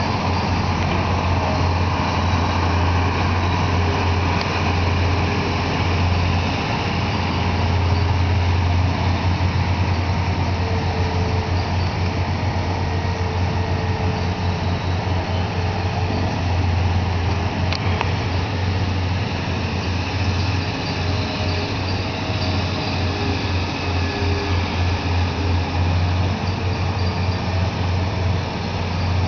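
Heavy diesel machinery running steadily: a Caterpillar hydraulic excavator working as it loads a dump truck, with the truck's engine running alongside. One sharp click about eighteen seconds in.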